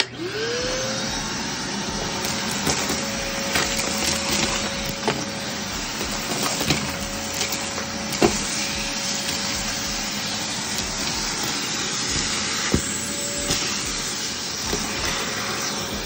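Vacuum cleaner switched on: its motor spins up with a quickly rising whine, then runs steadily with a rushing suction noise. Scattered sharp clicks and rattles come through as bits of bird mess are sucked up the hose and wand.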